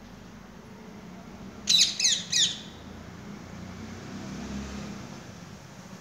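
A rose-ringed parakeet gives three quick, shrill screeches in a row, each falling in pitch, about two seconds in.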